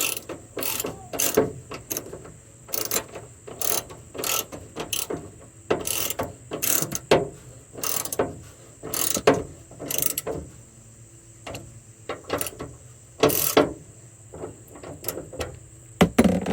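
Socket ratchet clicking in a run of short back-and-forth strokes as it tightens an M6 bolt with a 10 mm socket, with a brief pause about two-thirds of the way through.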